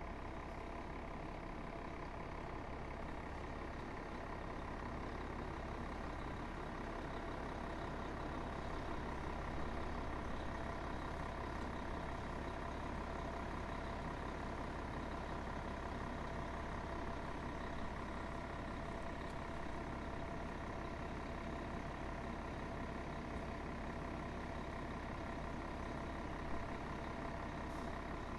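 Diesel engine of a fire rescue truck running steadily at low speed, an even hum with a faint steady whine over it.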